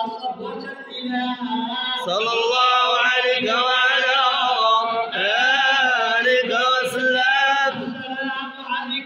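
A group of men chanting madih, devotional songs in praise of the Prophet, in unison with a lead voice on a microphone. The chant grows louder and fuller about two seconds in.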